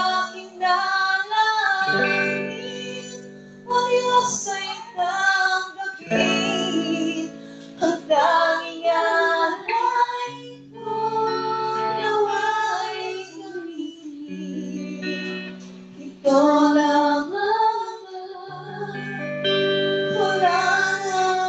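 A woman singing a church worship song into a microphone, accompanied by a guitar playing held chords and bass notes. The phrases break off with short gaps between them.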